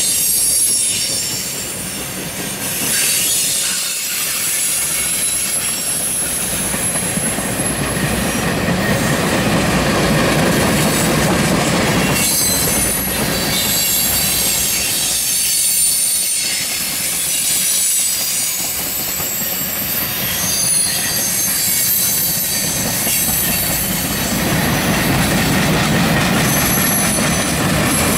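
Norfolk Southern freight train of tank cars and covered hoppers rolling past close by: a steady rumble of wheels on rail, with high-pitched wheel squeal that comes and goes.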